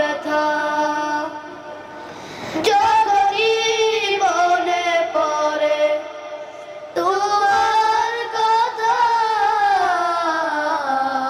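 Two boys singing a Bengali Islamic song together in long, held phrases, with short breaks for breath about two and a half seconds in and again about seven seconds in.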